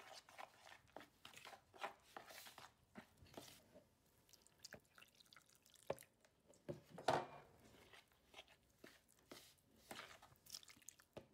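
Faint, irregular scraping and tapping of a metal spoon stirring corn flour in a plastic bowl, with warm water poured in from a cup about halfway through.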